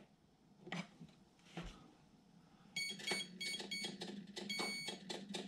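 Electronic beeps from an RC jet boat's speed controller as it powers up: a quick run of short high beeps, then one longer beep, typical of an ESC arming sequence.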